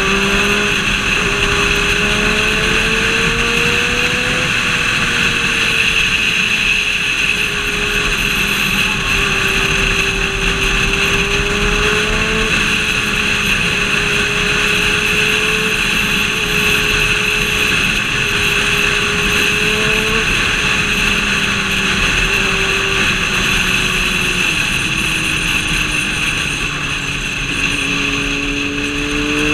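Road-vehicle engine running at moderate revs while under way, its note slowly rising and dropping several times, over steady wind and road noise.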